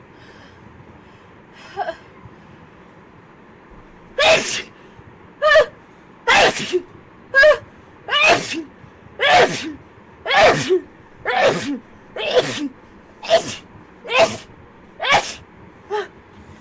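A girl sneezing rapidly, about a dozen sneezes in a row at roughly one a second, starting about four seconds in after a brief smaller sound near two seconds.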